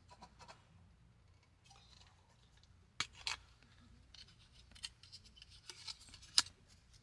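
Plastic snack package being handled and opened: crinkling, rustling plastic with several sharp clicks and snaps, the loudest about six and a half seconds in.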